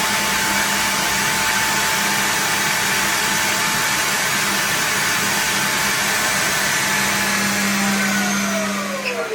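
Eufy L60 SES self-empty station's suction motor running steadily, pulling dust out of the docked robot vacuum's dustbin into the station. Near the end it begins to wind down, its whine falling in pitch as the noise fades.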